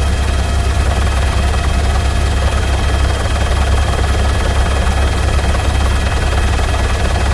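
Helicopter noise, a steady, loud deep drone from the rotor with a faint constant whine above it.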